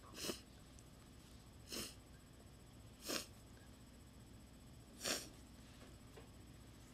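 Four short, quiet nasal bursts from a person, a second or two apart: small, stifled sneezes during induced sneezing.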